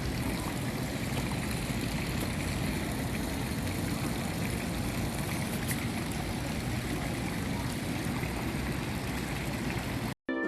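Water flowing steadily, an even rushing noise that cuts off abruptly near the end.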